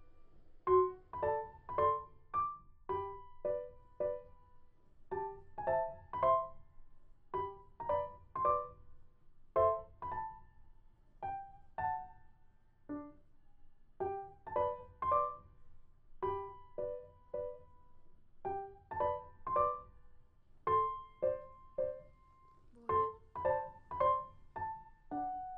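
Background music: a light piano tune of short, bouncy notes, with an occasional held note.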